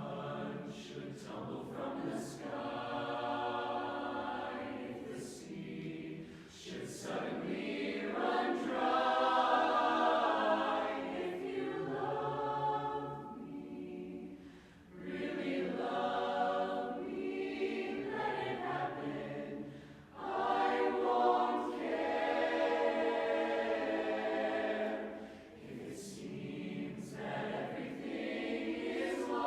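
Youth mixed barbershop chorus singing a cappella in close four-part harmony. The singing comes in phrases of several seconds, with brief breaks between them.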